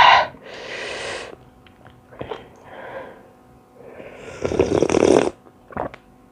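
A person eating khanom jeen rice noodles close to the microphone: a run of noisy slurping, sucking sounds, the loudest and longest about four seconds in, with small chewing clicks between them.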